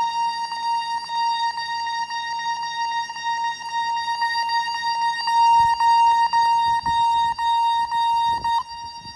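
Security-system keypad sounders, on a Bosch B9512G alarm panel, sounding a continuous fire-alarm tone with a faint regular click about three times a second. Near the end the shrill upper part of the tone stops and a quieter tone carries on.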